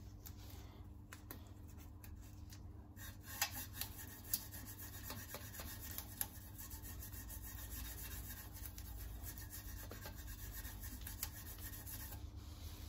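A piece of cardboard rubbed against a chromed exhaust tip to polish it, a steady scratchy rubbing that fills in about three seconds in, with a few sharp clicks along the way.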